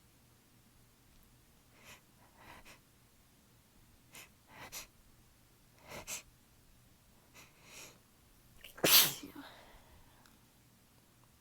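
A person in an allergy-driven, tickly sneezing fit: a run of short, sharp breaths catching and building up, then one loud sneeze about nine seconds in.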